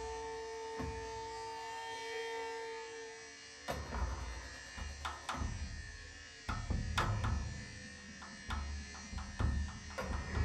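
Experimental improvised music on struck percussion objects with electronic processing. A steady held drone tone runs for the first few seconds, then from about four seconds in come irregular, sharp struck hits over deep thuds.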